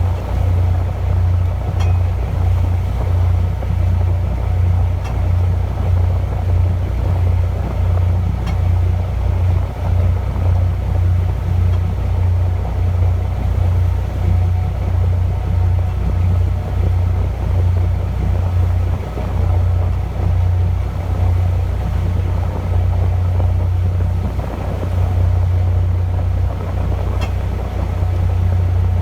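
A fishing boat's engine running steadily: a deep, evenly pulsing drone, with a few faint clicks over it.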